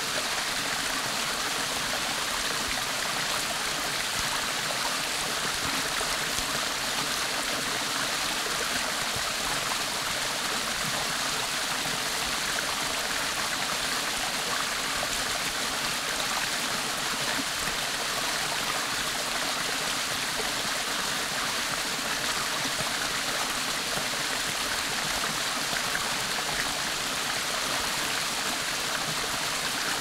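Small mountain waterfall cascading down a rock face into a shallow pool: a steady, even rush of falling and splashing water.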